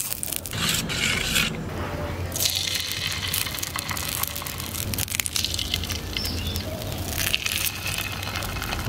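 Pitha batter sizzling in hot oil as it is poured into the wells of a clay sajer mould, in several separate bursts of hiss as each well is filled.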